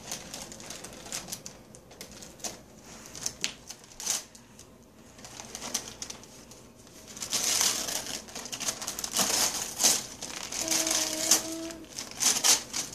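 A plastic packet being crinkled and torn open by hand, in irregular crackly bursts that grow busier and louder in the second half. Near the end a short, steady hum-like voice sound comes in.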